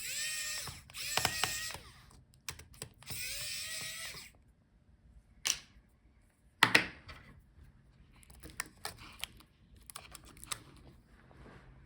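Hand work on a laptop's display cable connector during disassembly: three short squeaky scrapes in the first four seconds, then a sharp click near the middle and a run of light taps and clicks.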